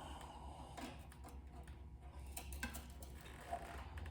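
Faint, scattered light clicks and taps of small hardware being handled, over a low steady hum.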